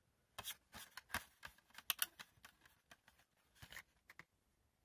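Faint, irregular clicks and crackles of clear plastic DVD disc trays being handled and turned like the pages of a book, stopping a little before the end.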